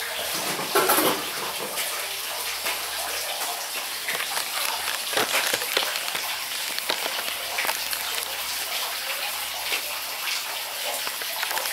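Steady rush of running, splashing water, with a few faint clicks over it.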